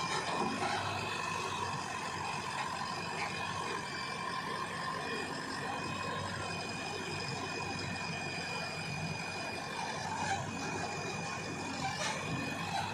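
Diesel engine of a JCB 3DX backhoe loader running steadily under work, with a steady high-pitched whine over it.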